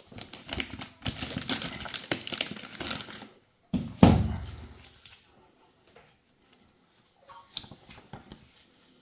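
Clear plastic FedEx document pouch crinkling and tearing as it is pulled off a cardboard box and the waybill papers are pulled out. About four seconds in, one loud thud as the box lands on a wooden floor, then light paper rustling near the end.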